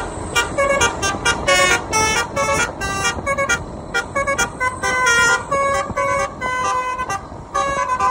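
Bus telolet horn, a multi-tone air horn, playing a quick tune of short notes again and again, with a brief break near the end.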